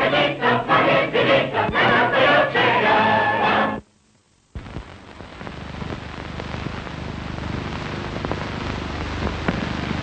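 A chorus of voices singing a lively, rhythmic song, cut off abruptly just under four seconds in. After half a second of silence, a steady hiss follows that slowly grows louder.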